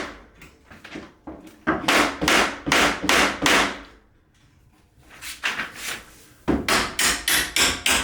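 Hammer blows on a door hinge, in two quick runs of about three strikes a second with a short pause between: tapping the hinge pins home while re-hanging a prehung door.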